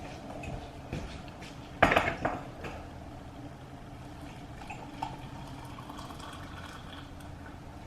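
Dishes and utensils clinking and clattering, with one loud clatter about two seconds in and a few lighter clicks after it, over a steady low hum.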